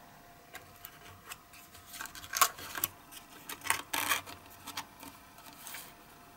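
Small cardboard toy box being closed by hand: the card tray holding the diecast model slides into its sleeve and the end flap is tucked in. The result is a series of light card rustles and taps, loudest between about two and four seconds in.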